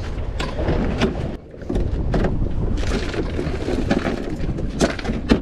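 Wind buffeting the microphone aboard a fishing boat, with a few sharp knocks and clatter on deck, the loudest near the end.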